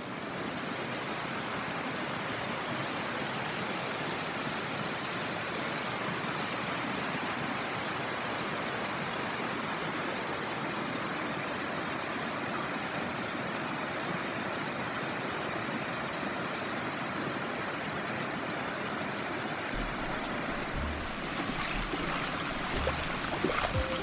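Steady rush of water falling at a waterfall, an even noise with no break. A few low bumps come in near the end, and music starts just as it closes.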